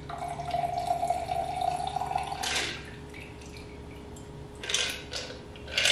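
A chilled cocktail poured from a mixing glass through a julep strainer into a champagne flute: a thin stream of liquid with a steady ringing pitch for about two and a half seconds, then drips and a few clinks, the loudest near the end.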